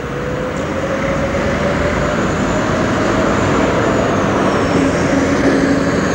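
Street traffic and a departing articulated tram: a steady rumble of engines and tyres, growing a little louder as vehicles pass close by. A faint whine rises in pitch over the first few seconds, and a steady lower hum sets in about four seconds in.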